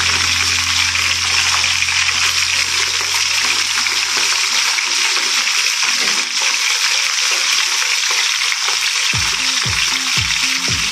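Fish fillets frying in hot oil in a skillet: a steady, loud sizzle, with background music's low notes underneath.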